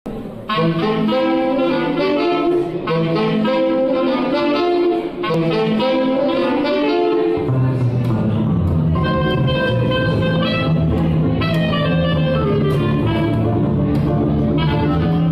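Small jazz combo playing: saxophone and clarinet carry the melody over hollow-body electric guitar, and a double bass line comes in about halfway through.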